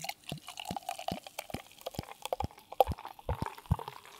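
Liquid glugging and plopping: a quick, irregular run of sharp drips and plops that dies away near the end.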